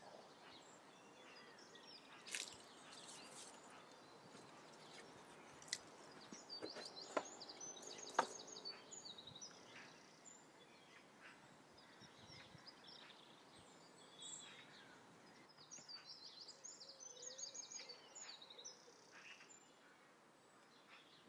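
Faint outdoor ambience with small birds chirping and trilling in short bursts, and a few sharp clicks or knocks, the loudest about eight seconds in.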